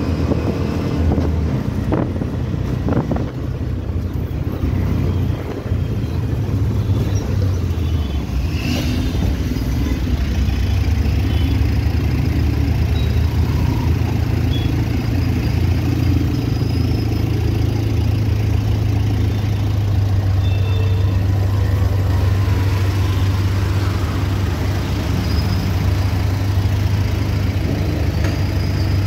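Auto-rickshaw engine running with a steady low drone, heard from the passenger seat of the open three-wheeler cabin, with street traffic around it. The drone grows steadier and louder about ten seconds in.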